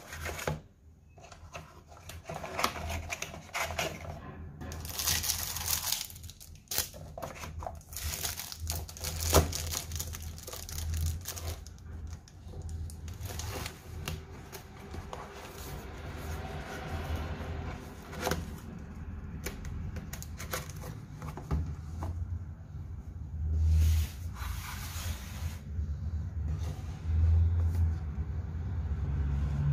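A cardboard gift box and its paper inserts handled by hand: irregular scraping, sliding and rustling with a few knocks, over a low steady hum.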